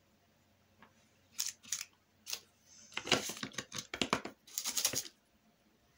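Paintbrush dabbing and scrubbing acrylic paint onto paper: a few scattered scratchy strokes, then a quick run of them about three seconds in, stopping about a second before the end.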